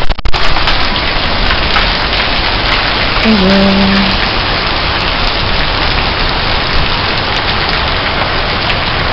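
Heavy rain pouring down steadily in a dense, loud hiss.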